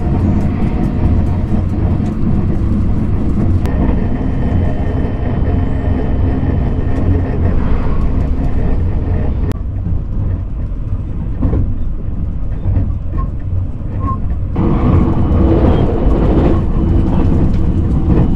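Running noise of an electric limited express train heard inside the passenger carriage: a steady low rumble with a few faint clicks, growing louder about three-quarters of the way through.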